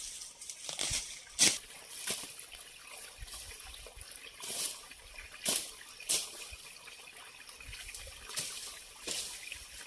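Water trickling, with irregular splashes every second or two.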